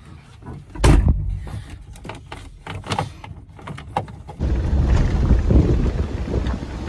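Scattered knocks and clicks of handling in a car, with a loud thump about a second in; then, a little past halfway, a steady low rumble of wind buffeting the microphone sets in.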